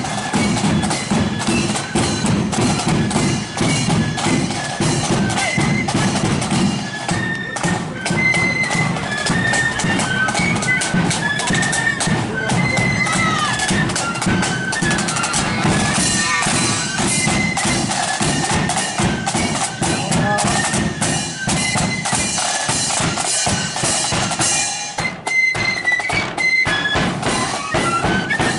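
Marching flute band playing a tune: a high melody on massed flutes over side drums beating a steady march rhythm.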